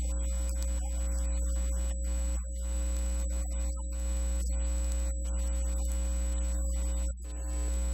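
Electronic background music held on a steady low synthesizer drone with a humming tone, dipping briefly twice.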